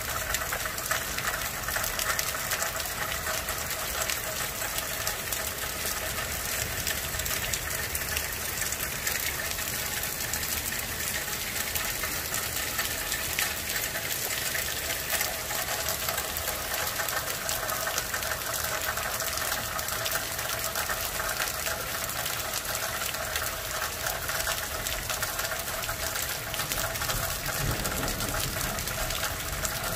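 Heavy thunderstorm downpour: rain pouring down steadily as a dense, even hiss.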